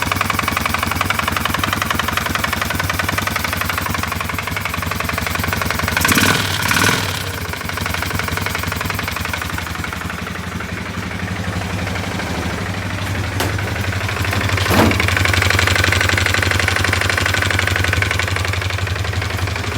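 CF Moto 500 ATV's single-cylinder engine running at idle with a knock in the engine, the fault it was brought in to have repaired. There are two short surges, about six seconds in and near fifteen seconds.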